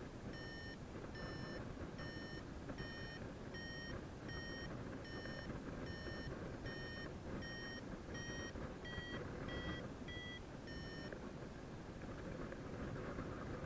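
Paragliding variometer beeping: a run of short beeps, a little over one a second, that rise slightly in pitch and quicken before stopping about eleven seconds in. This is the climb tone that signals the glider is in rising air. Under it runs a steady rush of wind.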